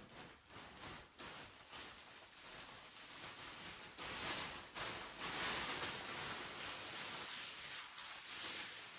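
Soft rustling and handling noise, as of papers or packaging being shuffled, a little louder from about four seconds in.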